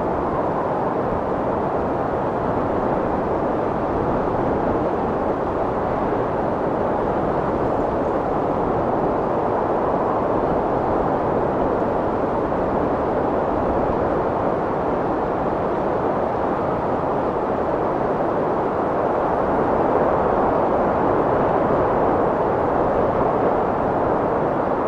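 Strong wind blowing in a steady, loud rushing, swelling slightly in the last few seconds.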